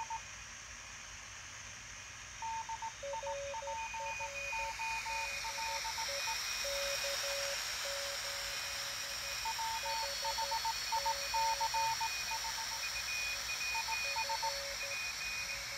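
Morse code (CW) signals from a homebrew QRP receiver, heard through an external Radio Shack speaker: keyed tones at two different pitches, from two stations, over a background hiss of band noise that grows louder about five seconds in.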